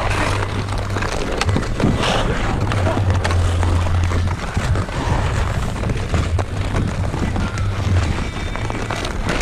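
Pond hockey on outdoor ice: skate blades scraping and hockey sticks clicking against the puck and ice, over a steady low wind rumble on the microphone.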